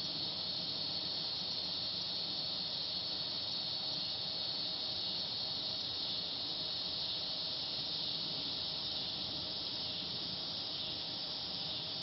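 Steady, unbroken high-pitched insect chorus, a continuous shrill buzz with no pauses or other events.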